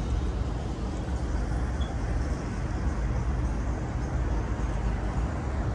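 Steady noise of a small motor yacht cruising: its engine running under the rush of wind and water, heaviest in the low end.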